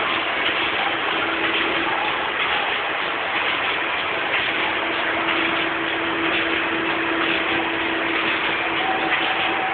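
Plastic bag-making machine running: a steady, loud mechanical noise with a faint steady hum under it.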